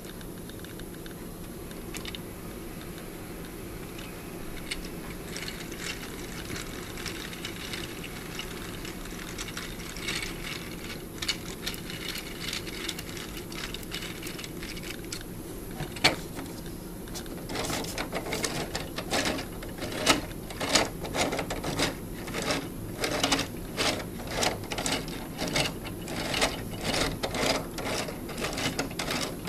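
Plastic clicking and clattering from a hand-cranked 3D-printed two-legged walking mechanism as its linkages and legs are worked. The clicks are sparse at first; a bit past halfway they become a steady run of knocks, about two a second.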